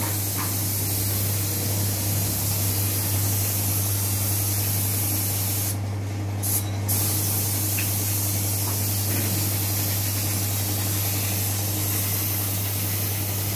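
Paint spray gun hissing steadily, cutting out briefly twice about six seconds in, over a steady low hum.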